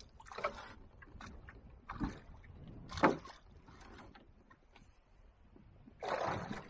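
Scattered knocks, rustles and splashy noises in a canoe as a hooked bass is fought to the boat on a bent spinning rod. The loudest is a sharp knock about three seconds in, and a longer splashy burst comes near the end.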